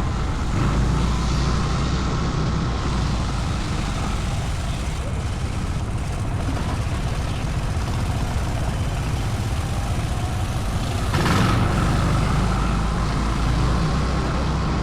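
ATV engine running steadily while riding, with a brief louder rush about eleven seconds in.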